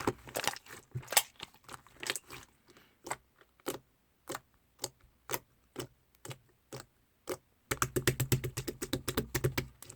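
Two-tone clear slime being pressed and poked by hand, giving sharp clicks and pops: scattered single clicks, then a fast run of clicks near the end.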